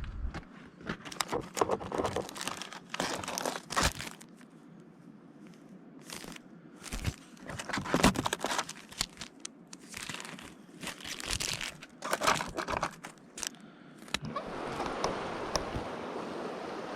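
Irregular close rustling and crackling, like handling noise, then the steady rush of river water takes over near the end.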